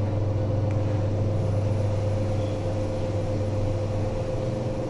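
Passenger lift car travelling down between floors: a steady low hum with a steady higher tone above it.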